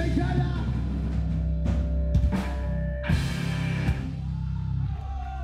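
Rock-style music with a drum kit over a steady bass line, with a few sharp drum hits around the middle.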